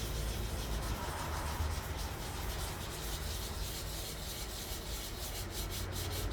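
Sandpaper rubbed back and forth over the primed metal hood of a 1958 Johnson outboard motor in quick, even strokes, sanding out a small divot before painting.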